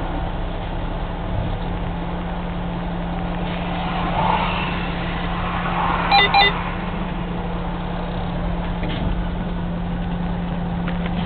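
A truck's engine running with a steady low hum, heard from inside the cab in slow traffic. About six seconds in come two quick beeps.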